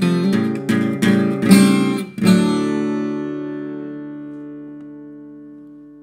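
Acoustic guitar strumming the last bars of a blues song: a few quick chords, then a final chord about two seconds in that rings out and slowly fades away.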